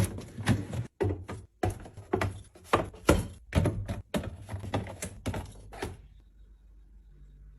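Irregular clacks and taps of food items and containers being handled and set down into a fridge while restocking it. A quick run of sharp knocks stops about six seconds in, leaving a faint low hum.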